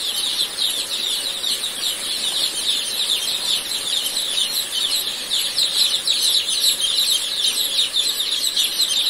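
A dense flock of two-day-old ayam joper (Jawa Super crossbreed) chicks peeping without pause: a thick chorus of overlapping high, falling cheeps.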